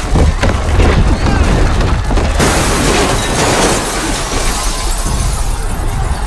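Deep rumbling with scattered impacts, then about two and a half seconds in a sudden crash of shattering glass and debris raining down for about three seconds, under a dramatic film score.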